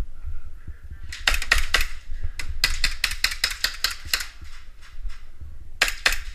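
Airsoft gunfire: rapid volleys of sharp cracks, with a dense string of about five shots a second in the middle and short bursts before and after it. A low rumble of handling noise runs underneath.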